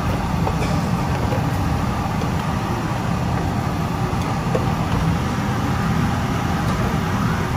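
Kitchen extractor hood fan running with a steady low hum, with a few faint knocks of a wooden spatula stirring food in a stainless steel pot.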